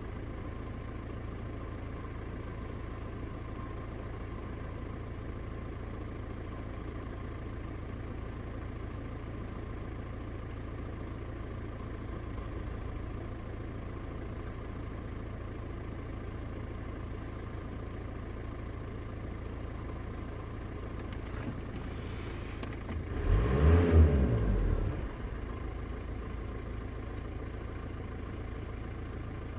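Volkswagen Passat engine idling steadily, with one brief throttle blip about three quarters of the way through, the pitch rising and falling back to idle. The engine has logged a cylinder 1 misfire (P0301).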